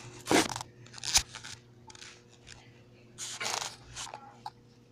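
Handling noise from the camera being moved about: a few short, sharp rustling scrapes, the loudest just after the start, about a second in and again about three and a half seconds in, over a faint steady low hum.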